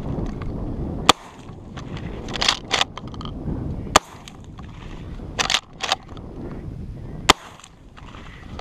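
Three shots from an Adler A110 lever-action 12-gauge shotgun, about three seconds apart. Between shots, two clacks of the lever being worked to chamber the next shell. The dirt bike's engine runs low underneath.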